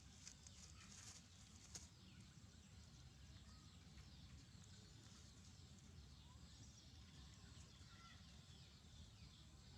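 Near silence: faint outdoor ambience with a steady low rumble, faint high chirping, and a few light clicks in the first two seconds.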